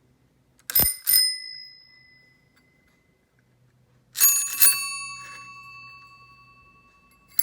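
Vintage bicycle bells rung by thumb lever. About a second in comes a quick double ring that fades within a second. Just past the middle another double strike rings on at a lower pitch for nearly three seconds.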